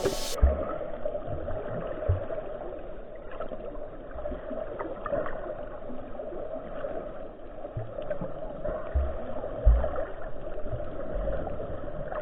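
Muffled sea-water noise with a steady hum, broken by low thumps every second or two.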